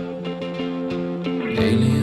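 Background music: a guitar song with a steady beat, swelling louder near the end.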